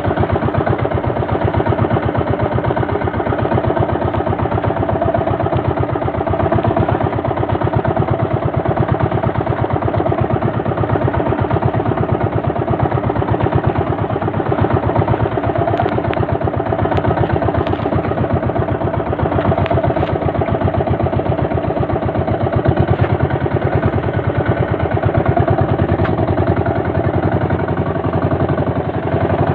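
Small boat engine running steadily at an even speed, its firing pulses close and regular throughout.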